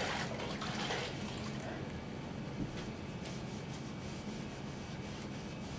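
Faint rubbing of a wet sponge on a wallpaper border as it is soaked with hot water to loosen it.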